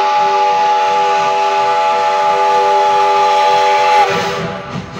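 Er-class steam locomotive Er 797-86 sounding its steam whistle as it departs: one long, loud, steady blast of several tones at once, which cuts off about four seconds in and leaves the hiss of steam.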